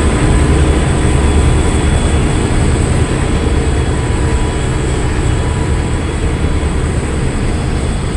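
Coal train rolling past: a steady rumble of the cars on the rails that slowly gets quieter.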